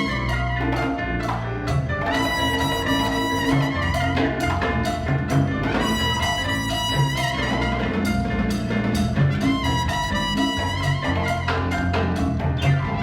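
Latin-jazz band playing in a mambo section: a trumpet plays long held notes over piano, bass, congas and timbales.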